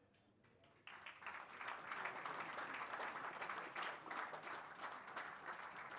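Audience applauding: dense clapping that starts suddenly about a second in, swells over the next second and keeps up steadily.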